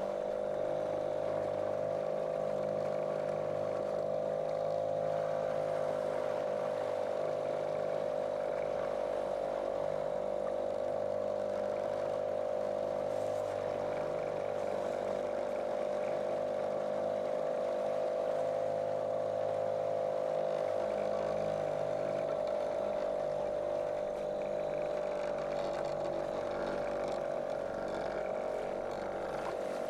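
Small motorboat's outboard motor running at a steady cruising speed, its drone holding one pitch throughout.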